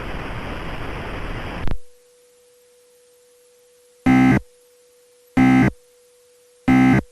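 Emergency Alert System end-of-message signal: three short, loud, buzzy digital data bursts about 1.3 s apart, closing a statewide EAS test. Before them a hiss of static cuts off suddenly, and a faint steady tone sounds underneath.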